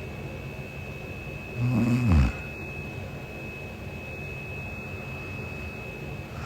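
A sleeping woman snores once, a short low snore about two seconds in whose pitch drops as it ends, over a faint steady high whine.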